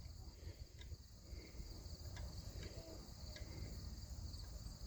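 Faint steady chirring of crickets, with a few faint light clicks.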